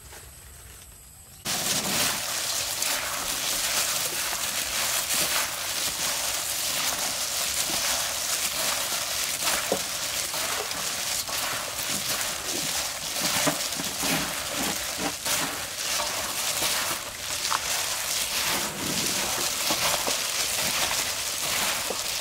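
Plastic-gloved hands tossing and squeezing a shredded watermelon-rind salad in a steel bowl: a steady wet crackling and rustling of gloves and crisp strips, starting suddenly about a second and a half in.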